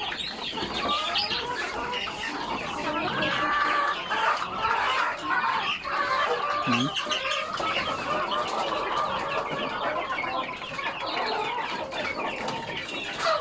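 A flock of chickens clucking and calling continuously, many birds overlapping at once.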